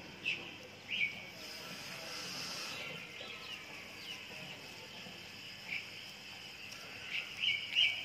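Birds chirping in short, high notes: two in the first second, a few scattered through the middle and a quick run of three near the end. A faint, steady, high insect-like buzz runs for about a second and a half, starting about a second and a half in.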